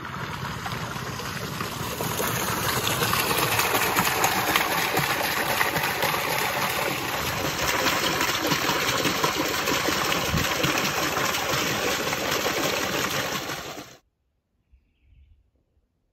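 Water gushing from a pump's discharge hose into a stock trough: a steady splashing rush, pumped up from a dugout, that stops suddenly about fourteen seconds in.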